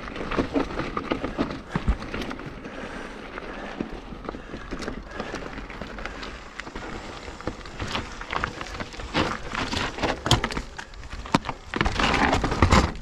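Mountain bike rolling down a rocky trail: tyres crunching over rock and grit, with irregular clicks, rattles and knocks from the bike over bumps, and a denser, louder rush near the end.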